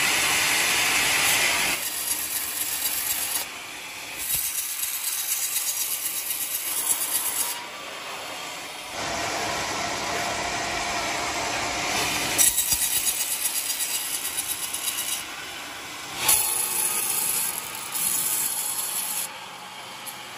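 Homemade band sawmill sawing old coconut logs, heard as a string of short clips. The rasping saw noise jumps in level and pitch at each cut, every few seconds.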